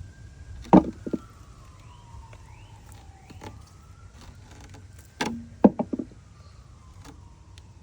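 Faint emergency-vehicle siren wailing, slowly rising and falling in pitch about every four seconds. A few sharp knocks, the loudest sounds, come about a second in and again around two-thirds of the way through.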